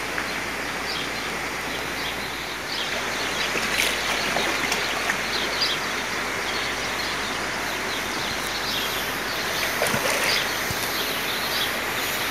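A hooked cachara catfish thrashing at the surface and splashing the water, with louder splashes about four seconds and ten seconds in. Frequent short high chirps run through the background.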